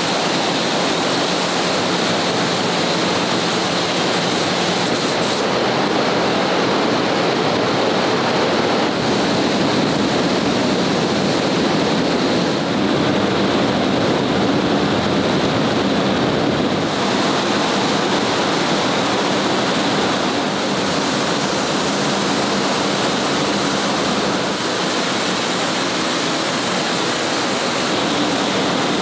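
Steady loud rushing noise of a paint spray booth with a low hum underneath, and the sharper hiss of compressed-air spray guns that eases off twice while the painters pause.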